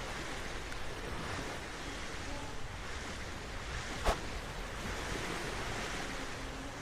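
Steady rushing noise like wind on the microphone, with one sharp click about four seconds in.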